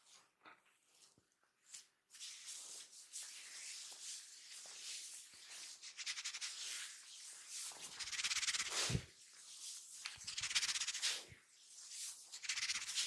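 Massage friction: rubbing strokes over skin, starting about two seconds in and then swelling and fading again and again, with a couple of soft thumps in the second half.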